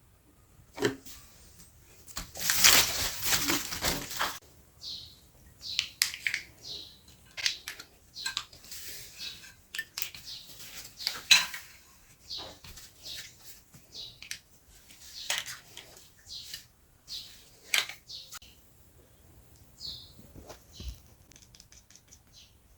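Meat grinder being worked, with a dense crunching, grinding noise about two seconds in, then scattered metal clinks, knocks and scrapes.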